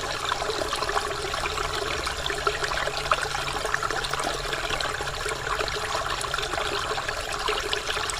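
Waterfall water splashing and trickling in a steady, even rush, full of small crackling splashes.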